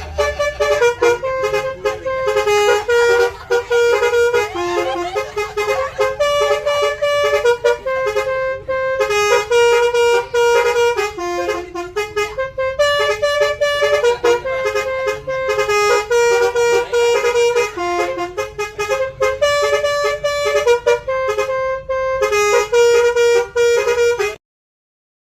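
Bus telolet horn, a set of electric air-horn trumpets, playing a tune of short stepped notes in quick succession. It cuts off abruptly near the end.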